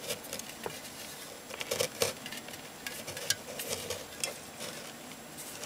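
Handling noises as a drink can is picked up and set in place: scattered light knocks and clicks with short rustles of packaging.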